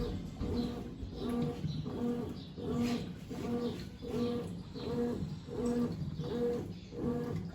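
Brastemp Tira Manchas Advanced 17 kg top-load washing machine agitating in the rinse cycle: the motor hums at a fixed pitch on each stroke, in a regular back-and-forth rhythm of about one stroke a second.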